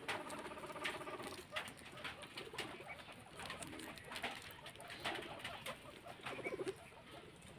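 Guinea pigs making low, pulsing purring calls in several short runs, with small sharp clicks of chewing among them.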